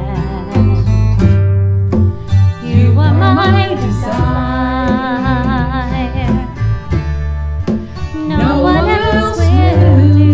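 Worship band of hand drums (congas), strummed acoustic guitar and electric bass playing a slow song, with voices singing long held notes over it.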